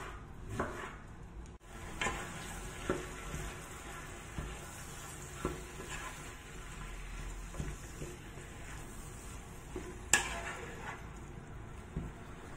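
Diced raw chicken sizzling in olive oil in a frying pan, stirred with a wooden spatula that knocks and scrapes against the pan at irregular moments; a sharp knock about ten seconds in is the loudest. Before that, for the first second and a half, a knife chops the chicken on a wooden cutting board.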